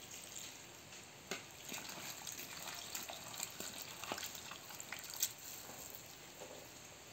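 A thin stream of tap water running into a plastic bowl of cut baby corn, with scattered small knocks as a hand washes the pieces.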